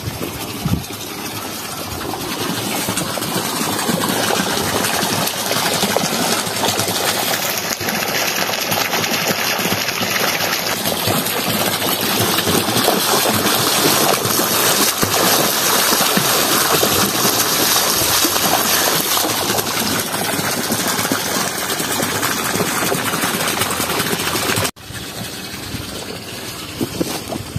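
Water rushing and spraying out of an irrigation pipe in a steady roar of noise. It cuts off sharply near the end.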